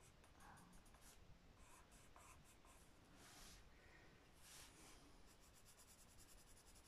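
Faint scratching of a coloured pencil on squared notebook paper as drawn lines are traced over: short strokes, two longer strokes around the middle, and a quick run of small strokes near the end.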